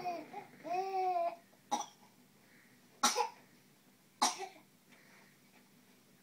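Infant cooing briefly twice, then three short coughs about a second apart, the first two pitched like a baby's voice in between.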